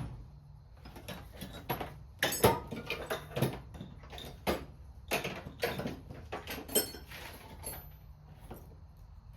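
Hand tools clinking and knocking together as they are rummaged through, in a string of irregular sharp knocks, over a low steady hum.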